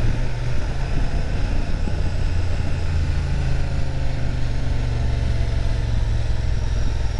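Honda Transalp motorcycle engine running on engine braking down a steep descent, a steady low rumble.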